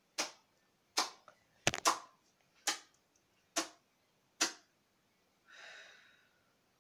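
A series of about seven sharp clicks, roughly one a second, followed near the end by a short breathy rustle.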